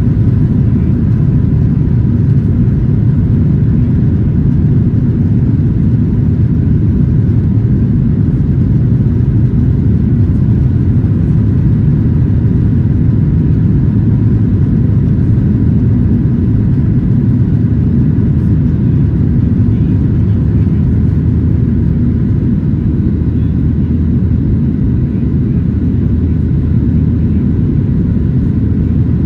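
Cabin noise of a Boeing 737-900ER climbing after takeoff: a steady, loud, low rumble of its CFM56-7B turbofans at climb power and the air rushing past the fuselage, with a faint steady whine above it.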